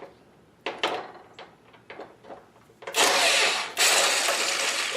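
A few light clicks of tool handling, then an impact gun run in two loud bursts about three seconds in, with a short break between them, undoing a hood latch bolt.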